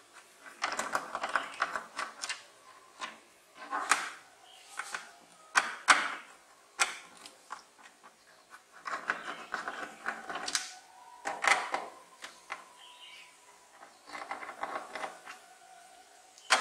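Hand screwdriver backing screws out of a plastic TV back cover: repeated bursts of clicking and scraping as the screws turn, with a few sharp clicks.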